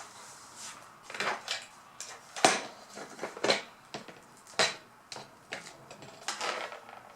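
Small plastic toy parts being handled: a series of irregular clicks and taps, the loudest about two and a half seconds in.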